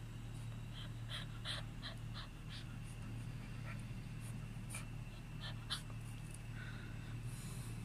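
Chow chow puppy's mouth sounds, small irregular wet clicks of licking and chewing at its paw, over a steady low hum.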